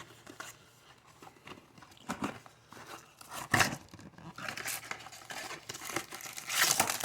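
Packaging of a 2021 Bowman baseball card blaster box being torn open and handled: scattered tearing and crinkling in short bouts, the loudest near the end.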